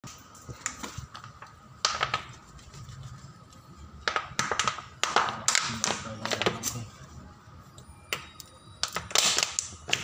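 Scattered clicks, taps and knocks of hands handling things at the refrigerator's compressor, with a denser cluster of clicks near the end, over a faint steady hum.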